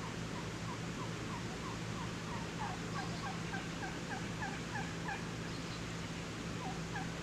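Turkey yelping: a long run of short, falling notes, about three a second. The notes break off a little past halfway and start again near the end, over a steady low hum.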